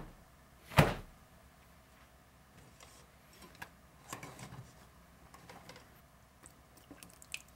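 A sharp clink of the stainless steel mesh strainer against the metal pot about a second in, then soft cloth rustling as cheesecloth is spread into the strainer, with a few light taps near the end.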